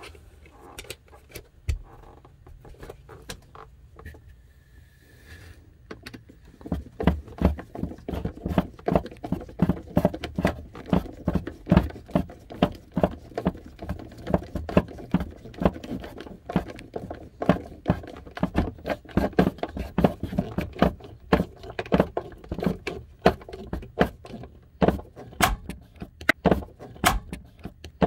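Hand screwdriver driving a Phillips screw into the plastic spring cartridge of an RV toilet, clicking over and over as it is turned. The first few seconds hold only faint handling noises before the clicking starts.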